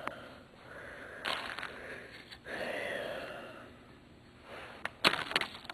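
Clear plastic zip bags of pinball parts rustling and crinkling as they are handled, with a couple of sharp clicks a little after five seconds in.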